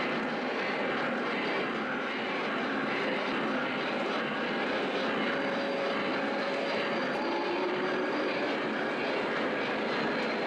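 O gauge model steam locomotive running on three-rail track: a steady, unbroken rolling noise of wheels and motor.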